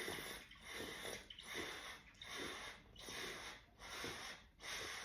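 A man gulping down carbonated water from a bottle, swallow after swallow in a steady run a little faster than one a second.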